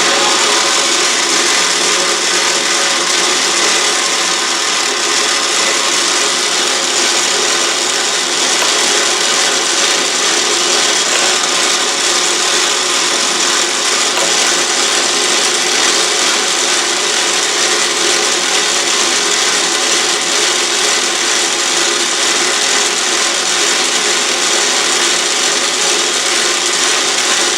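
Autobox 8x16 benchtop lathe running steadily under power, a loud, even mechanical whir with a constant whine from the motor and gears.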